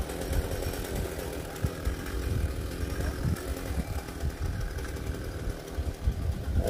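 Chainsaw idling steadily.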